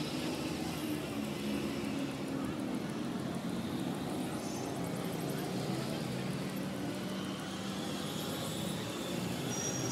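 Steady low hum of distant city traffic, with two brief high chirps, one about halfway through and one near the end.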